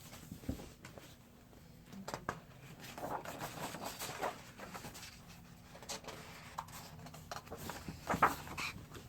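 Faint paper rustling and soft knocks as a picture book is handled and its pages turned, with the loudest rustles about three to four seconds in and again near the end.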